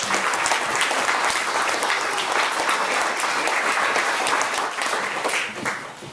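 Audience applause in a small room, dense clapping from many hands that holds steady and dies away near the end.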